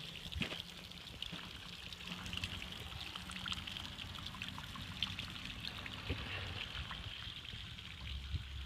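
Water from a garden waterfall trickling and splashing steadily, with many small drips and splashes; a low rumble grows near the end.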